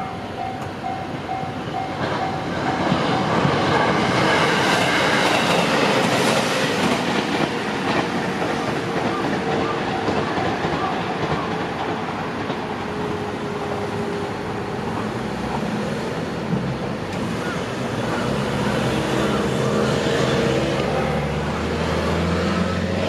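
A train on the JR Gotemba Line runs through a level crossing with a loud, steady rail rumble and wheel clatter, and brief high wheel squeal now and then. The crossing's warning bell is heard ringing at first and is drowned out by the train about three seconds in.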